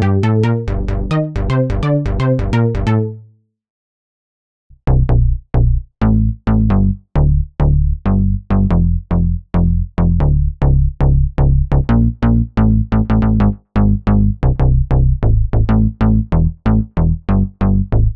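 Access Virus-style software synthesizer patches played in a sequenced pattern. One staccato phrase stops about three seconds in, and after a second of silence a new phrase of short, quickly decaying plucky notes with a strong bass starts, running at about three to four notes a second.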